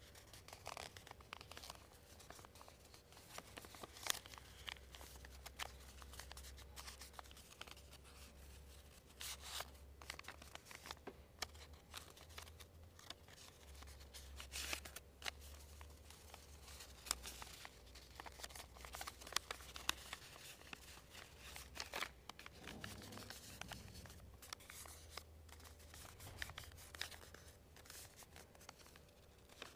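A sheet of paper being folded by hand, faint: scattered crinkles and short sharp creasing clicks, over a low steady hum.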